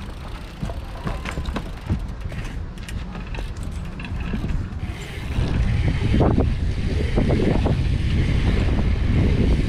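Bicycle tyres rolling over a plastic modular pumptrack, with light clicks and knocks at first. About halfway through, a louder low rumble of wind buffeting the helmet-mounted camera's microphone sets in as speed picks up.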